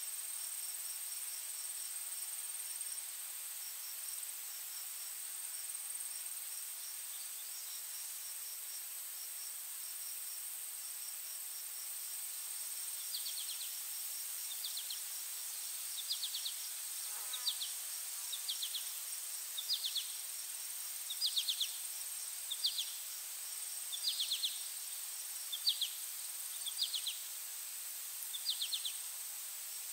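Insect chorus: a steady high-pitched buzz with a fast run of ticking chirps. From about halfway through, short chirping calls repeat roughly once a second.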